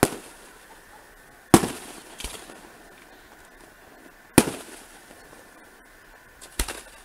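Aerial firework shells bursting in the sky, each a sharp bang that trails off in an echo. The loudest come about a second and a half in and again past the middle, with a fainter bang soon after the first and a quick double bang near the end.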